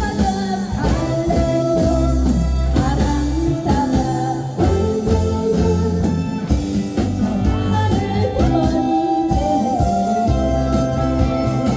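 A singer sings a Korean popular song over a band backing track with guitar, bass and a steady drum beat.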